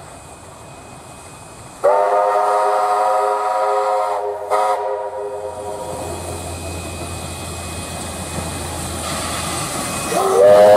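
Hunslet-built steam locomotive 2705's whistle sounds a long blast of about two seconds, then a short toot, over the low rumble of the working engine. A second, louder blast starts near the end.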